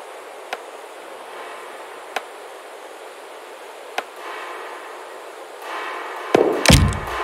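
Electronic bass-music track made from processed field recordings. A steady hissing ambient bed carries three sharp clicks spaced under two seconds apart, and a pitched layer fades in. About six seconds in, deep bass hits and crisp percussion drop in as the beat starts.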